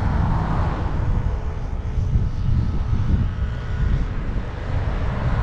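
Wind buffeting the microphone of a moving bicycle, a steady low rumble. An oncoming vehicle passes in the other lane in the first second or so.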